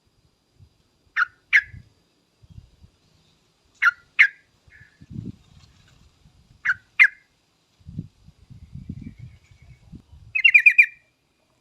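Yellow-vented bulbul (trucukan) calls: three quick two-note calls a few seconds apart, then a fast chattering trill near the end. Faint low rumbling runs underneath in the middle.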